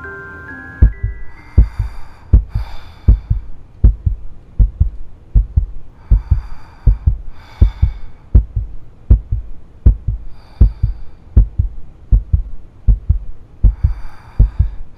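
Horror-film heartbeat sound effect: a steady double thump repeating about every three-quarters of a second, starting about a second in, with a shimmering, hissy swell every few seconds. A music-box-like chime melody dies away at the very start.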